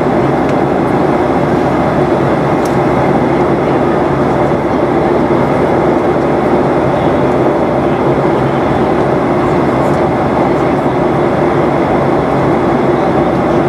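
Steady roar of engine and airflow noise inside the cabin of a Boeing 737-800 in flight, from its CFM56 turbofans and the air rushing past the fuselage.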